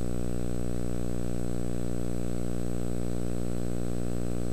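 A steady, fairly loud low hum with many evenly spaced overtones, unchanging throughout.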